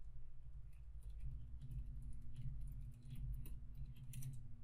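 Computer keyboard typing: faint, irregular key clicks over a low steady hum.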